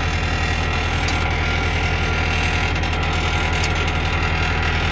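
Tractor engine idling steadily, with a couple of faint clicks and scrapes from a pry bar digging packed mud out of the disc harrow's blades.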